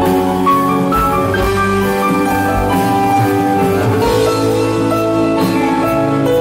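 Instrumental background music with held, changing notes.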